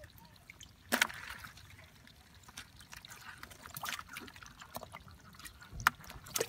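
Hands sloshing and splashing in a shallow pool of muddy water while groping for eels, with a few sharper splashes, the loudest about a second in and twice near the end.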